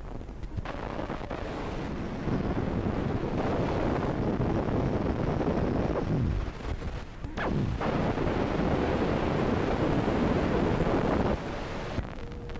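Loud, harsh static-like noise from a mock broadcast hijacking, rising about two seconds in. Two quick downward sweeps in pitch cut through it a little past the middle, and it cuts off abruptly about a second before the end.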